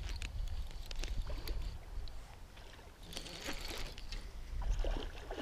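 Wind rumbling steadily on the microphone, with scattered small clicks and ticks from hands working a baitcasting reel and fishing line.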